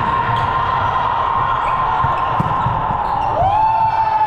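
Volleyball bouncing on a gym floor between rallies, in a busy hall, with a long steady high-pitched tone throughout that gives way, about three seconds in, to another tone that slides up and holds.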